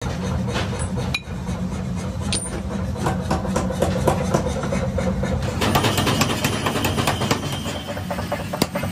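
Steady low machine hum with many short metallic clinks and knocks from steel being handled; the clinks come thicker from about halfway on.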